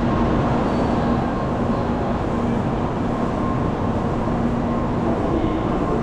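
Steady train-station background noise: an even rumble with faint hums running through it.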